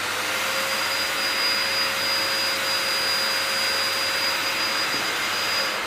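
SHELANDY 3.2 HP pet force dryer (dog grooming blower) running steadily, air rushing out through its flexible hose. The rush carries a thin high whine and a lower hum.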